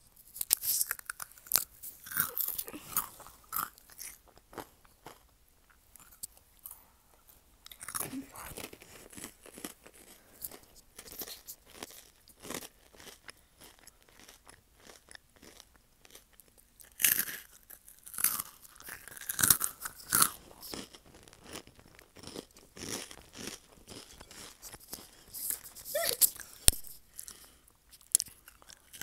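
Crunchy orange snack being bitten and chewed close to the microphone: clusters of crisp, crackly crunches with quieter chewing in between.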